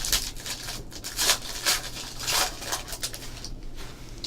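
Trading cards sliding and rubbing against each other as a pack of football cards is handled and flipped through: a string of short, papery swishes.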